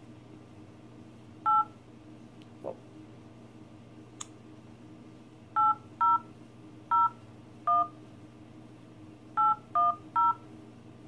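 Smartphone keypad touch-tone (DTMF) dialing beeps as digits are tapped in: eight short two-pitch beeps, one on its own about a second in, then seven in uneven clusters.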